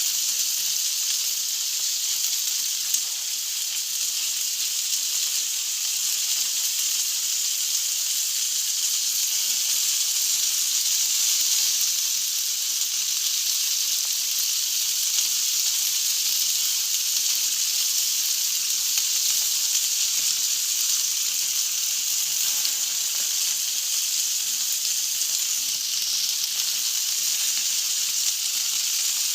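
Food sizzling on a Balkan grill (roštilj): a steady high hiss with fine crackling.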